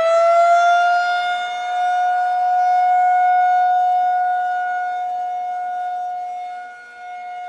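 Outdoor civil defense warning siren, already wound up to full pitch, holding one steady wailing tone and fading somewhat near the end.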